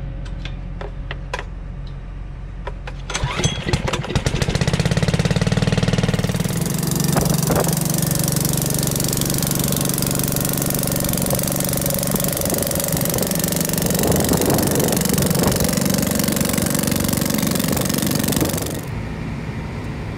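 A small gasoline engine on a liquid fertilizer transfer pump, started after a few clicks of the controls about three seconds in, then running steadily at speed while it pumps nitrogen fertilizer from the storage tank into the applicator. About a second before the end, this gives way to the quieter, steady sound of a tractor engine heard inside the cab.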